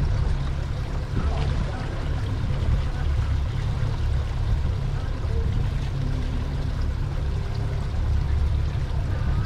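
Steady low rumble aboard a fishing boat on the water: wind and boat noise on the microphone, with no clear events.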